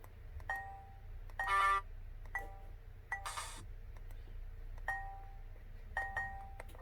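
Short electronic beeps from a WPI-8800N VoIP phone handset, about six of them spaced roughly a second apart, mixed with a couple of brief hissy clicks; the loudest comes about one and a half seconds in.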